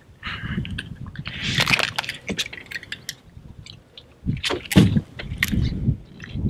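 Clicks, knocks and rustling of a small mangrove snapper being handled and unhooked with a de-hooker, with a few louder thumps about four to five seconds in, over a low rumble.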